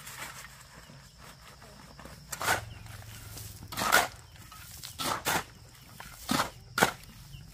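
Rocks knocking hard against rock, six sharp, irregular knocks spaced about a second apart from about two seconds in.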